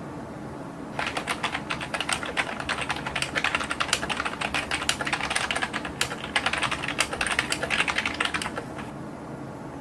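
Fast continuous typing on a computer keyboard, a dense run of sharp key clicks starting about a second in and stopping shortly before the end.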